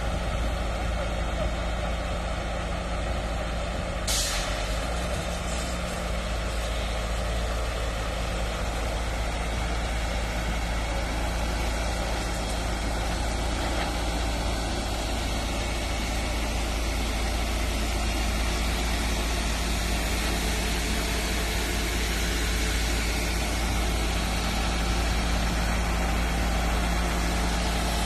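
Heavy diesel engine noise from forward-moving aggregate spreaders (chip-seal gravel spreaders), running steadily with a strong low hum. One short hiss comes about four seconds in.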